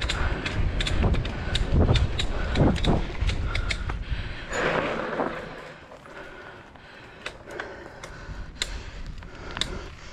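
Bicycle rattling and creaking over a rough dirt trail: dense clicks and knocks over a low rumble, busy for the first half, then quieter with scattered clicks.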